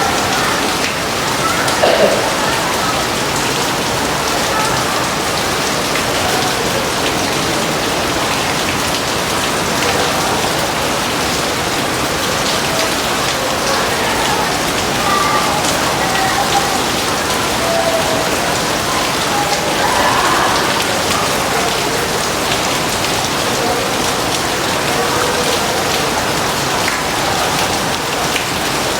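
Steady heavy rain falling and splashing on hard surfaces, an even dense hiss that holds at one level without thunder. A few faint short tones come and go over it.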